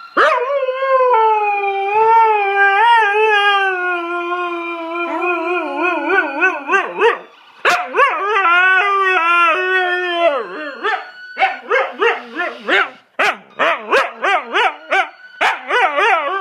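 Siberian husky howling: a long howl wavering in pitch, a second long howl after a brief break, then from about eleven seconds in a quick run of short howling calls, about two a second.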